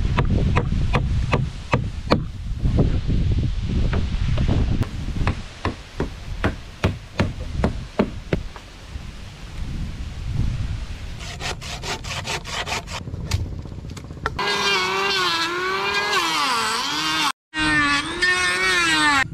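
Hammer blows driving nails through plastic barrel sheet into a wooden batten, a quick irregular run of knocks through the first half. Later an electric hand planer runs on a wooden plank, its motor whine sagging in pitch and recovering again and again as it takes cuts.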